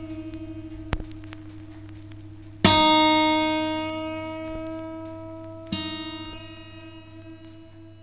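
The same high guitar note plucked twice, about three seconds apart; each pluck starts sharply and rings on, fading slowly. A short sharp click comes about a second in.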